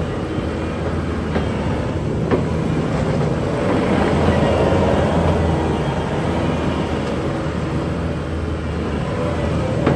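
Bobcat T740 tracked skid steer working, its diesel engine running steadily with a wavering whine over it, swelling in loudness about four seconds in. A few sharp metal clanks sound, at about one and a half and two and a half seconds in and again at the end.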